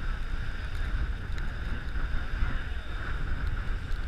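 Passenger boat under way, its engine and the water giving a steady rumble, with wind buffeting the microphone.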